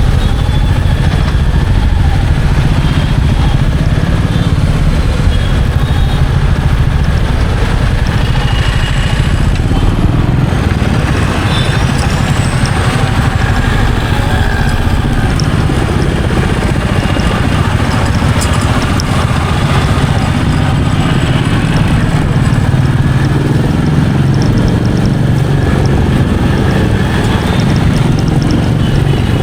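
Royal Enfield Meteor 350's single-cylinder engine running steadily as the motorcycle is ridden, a constant low-pitched rumble with road noise.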